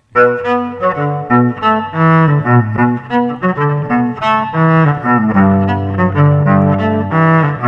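Instrumental opening of a song: string instruments play a stepping melody of separate notes, with a low note held underneath from about five seconds in, and no singing yet. The music starts right at the beginning, out of silence.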